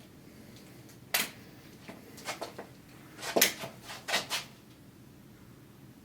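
An airgun being handled between shots: a string of sharp clicks and knocks, starting about a second in, the loudest about three and a half seconds in.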